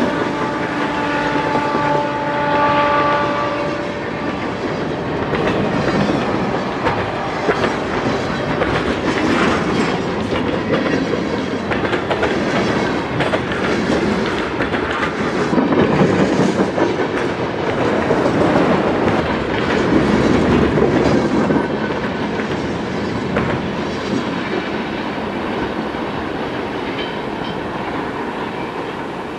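A freight train passing close by. A multi-note locomotive horn chord sounds and cuts off about four seconds in. After that the train cars rumble past with wheels clicking over the rail joints, loudest toward the middle.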